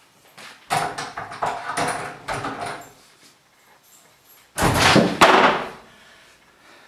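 Wooden interior door: a run of knocks and rattles, then a loud bang about four and a half seconds in as the door is flung open.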